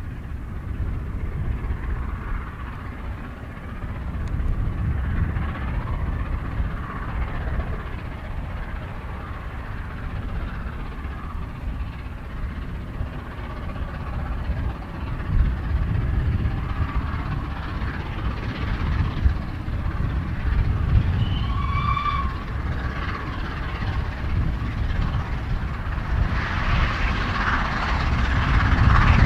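Steam locomotive working a train uphill: its exhaust and the rumble of the train grow louder as it draws near, loudest near the end.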